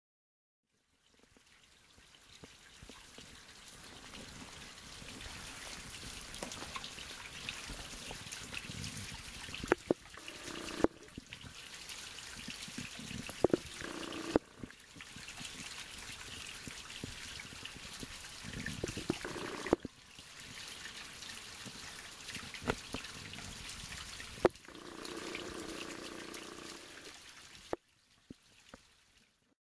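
Spring water trickling from a small spout into a puddle below, a steady splashing with a few sharp clicks.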